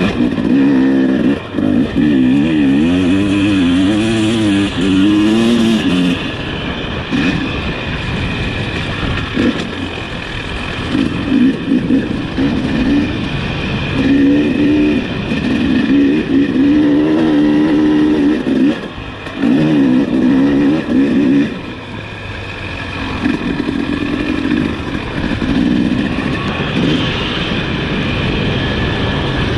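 Husqvarna TC250 single-cylinder two-stroke motocross engine heard from on the bike, its pitch repeatedly climbing and falling as the throttle is worked. The sound drops briefly off the throttle a few times, about six seconds in, near nineteen seconds and near twenty-one seconds.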